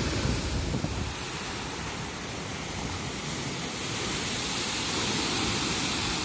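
Sea waves breaking and washing up the shore in a steady rushing hiss that swells about four seconds in, with wind buffeting the microphone near the start.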